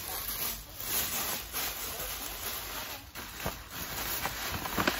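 Paper rustling and crinkling as it is stuffed into a gift bag, an irregular crackle with a few sharper crinkles near the end.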